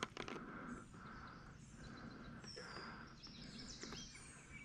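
Faint outdoor ambience with birds chirping in short repeated phrases. There is a sharp click right at the start as the digital hand scale is handled, and a few fainter handling clicks after it.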